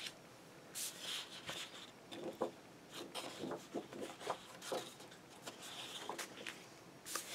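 Sheets of 12-by-12 double-sided scrapbook paper rustling and sliding against each other as they are turned over by hand, in a string of short, soft strokes.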